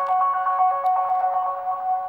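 Background music: a quick melody of short notes, several a second.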